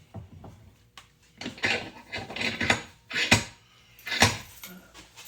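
Tools and drywall being handled: a few short clatters and scrapes.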